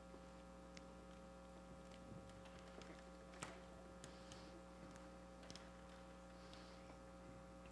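Near silence: a steady low electrical hum with a few faint scattered clicks.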